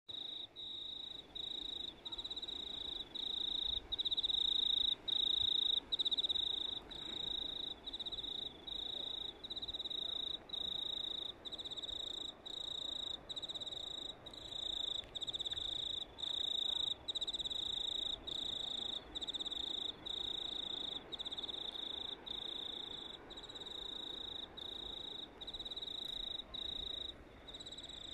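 A cricket singing: a high, steady trill repeated over and over, each about a second long with a brief break between, over a faint background hiss.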